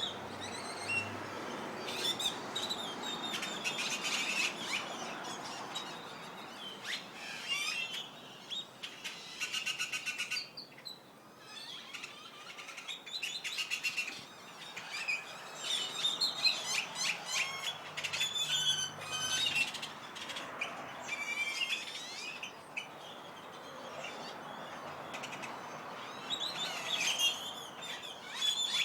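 A flock of birds in a tree chirping and calling together, many overlapping calls at once, with a rapid buzzy trill about ten seconds in and a short lull just after.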